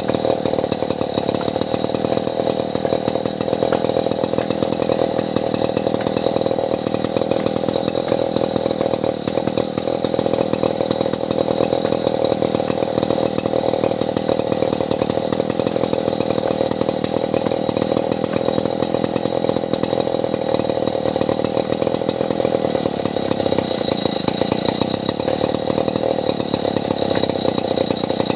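Petrol chainsaw running steadily at a constant pitch while cutting albasia wood.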